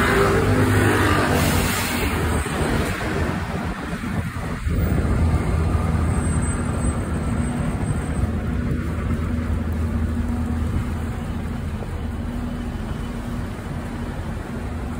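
City street traffic: a nearby motor vehicle's engine running with a steady low hum, easing off slightly toward the end.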